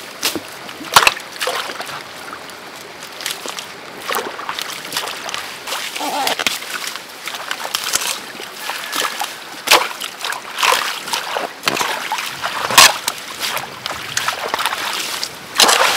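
Splashing and sloshing in a shallow ditch of running water as weeds and mud are hacked and pulled out of it with a hand tool and by hand: a string of sharp, irregular splashes over a steady run of water.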